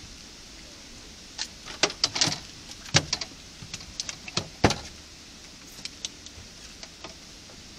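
A quick run of irregular sharp clicks and knocks over a steady hiss, bunched from about a second and a half in and thinning out after about five seconds.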